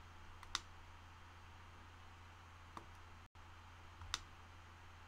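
Three short clicks from a computer mouse and keyboard being operated, spaced well apart, over a faint low steady hum.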